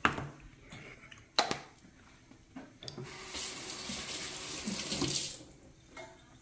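A sharp knock on the counter, another about a second and a half later, then a kitchen tap runs in the sink for about two seconds and is turned off.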